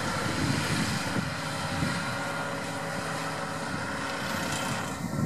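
Deutz-Fahr 6155 tractor running steadily under load, driving a power harrow through the soil.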